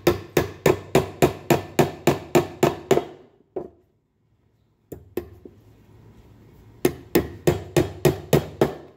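Steel claw hammer driving nails into a soft pine board: a quick, even run of about ten blows at roughly three a second, a few single blows after a short pause, then a second run of about seven blows near the end.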